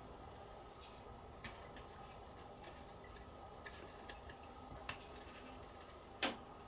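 Faint, scattered small clicks and taps of fingers handling a plastic model kit body while pressing a paper masking template onto it, with one louder click a little before the end, over a faint steady hum.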